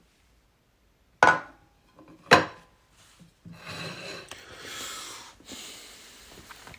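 Chips being eaten: two loud crunchy bites about a second apart, then a few seconds of continuous crunchy chewing.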